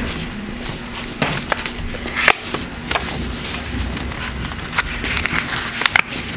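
A sheet of craft paper being folded and creased by hand on a tabletop: rustling and crackling, with a few sharper snaps as the folds are pressed down.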